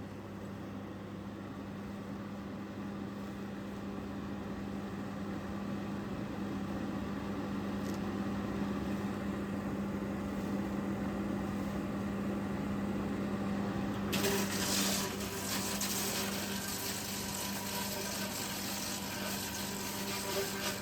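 Wood chipper running with a steady hum that slowly grows louder; about two-thirds of the way through, a sudden loud hiss joins it.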